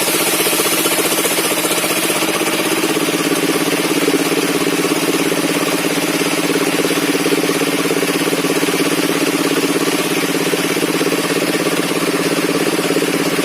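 Engine of a circular sawmill rig running steadily at a constant speed, with a high hiss that fades about two seconds in.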